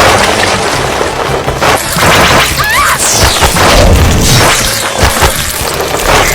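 Loud, dense crashing and smashing impacts, with music underneath.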